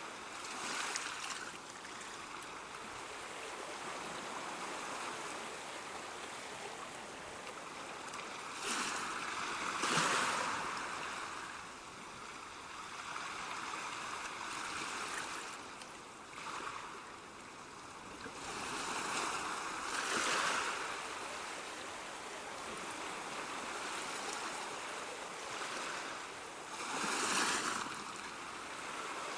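Ocean waves washing on a shore: a steady rushing hiss of water, with a wave breaking and surging louder every few seconds, strongest about ten seconds in and near the end.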